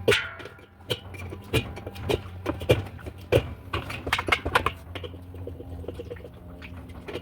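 Hammer tapping on the metal spin-basket hub nut of a top-load washing machine to loosen it: a string of sharp, irregular knocks, the first ringing on briefly, over a steady low hum.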